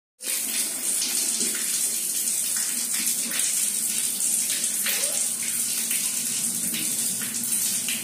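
Tap water running in a steady stream and splashing onto a tiled bathroom floor: a continuous hiss with small splashes.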